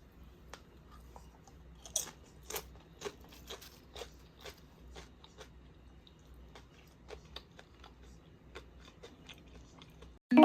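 A string of short, crisp crunches and clicks at an irregular pace, about one or two a second and loudest about two to three seconds in, over a faint steady low hum.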